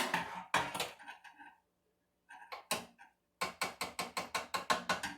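Clattering knocks, then a quick even run of ratchet-like clicks, about seven a second, from a knob or ratcheting adjuster being turned on a router table setup.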